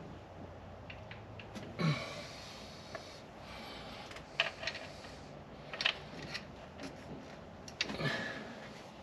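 Scattered light clicks, taps and rustles of hands fitting and routing a car's spark plug leads, with two slightly louder knocks about two seconds in and near the end.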